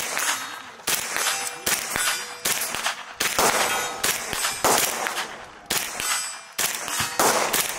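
AK-pattern rifle fired in single shots, about a dozen at an irregular pace of roughly one to one and a half a second. Each shot has a short metallic ringing tail.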